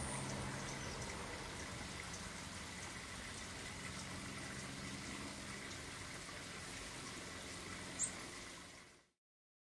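Steady backyard background noise, an even rushing hiss with a faint low hum under it, and one brief high-pitched sound about eight seconds in. It fades out just before the end.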